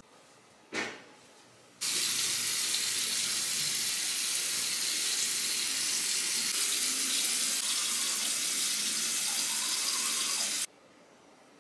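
Bathroom sink tap running steadily into the basin. It is turned on sharply about two seconds in and shut off suddenly near the end.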